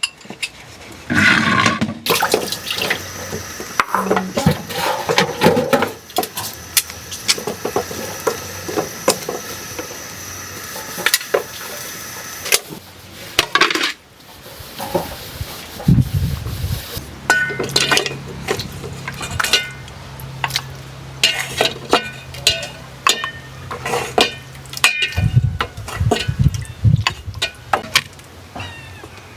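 Dishes being washed by hand in soapy water: water pouring and splashing steadily for several seconds, then pots, plates and cutlery clinking and knocking many times in the second half.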